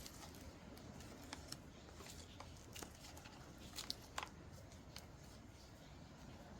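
Paper being handled and shuffled: faint rustles and light taps, with a few sharper clicks about four seconds in.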